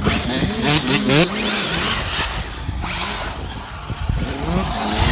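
Dirt bike engine revving, its pitch rising and falling several times as the rider works the throttle.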